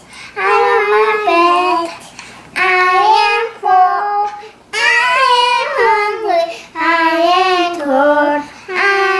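A young child singing unaccompanied, in about five short phrases with brief pauses between them.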